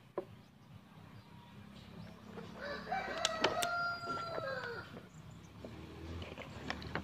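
A rooster crowing once: a single long call starting about two and a half seconds in, held for about two seconds and dropping in pitch at the end. A few sharp knocks come at the start and during the crow.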